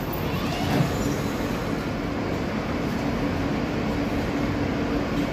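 New York City subway F train standing in the station with its doors open, its onboard equipment giving off a steady hum with a faint even tone.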